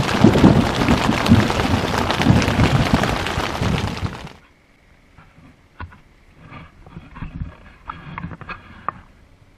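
Heavy rain pelting a tent with a loud, rolling clap of thunder. About four seconds in it cuts off suddenly to a much quieter scene with a few faint knocks from a small boat on open water.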